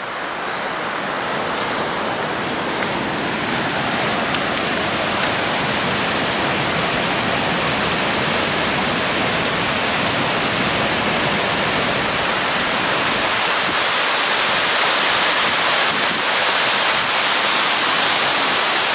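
Steady rush of a mountain stream cascading over rocks, slowly growing louder.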